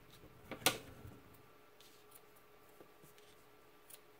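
Hands handling paper and fiber on a tabletop: one sharp click about two-thirds of a second in, then a few faint small ticks and rustles.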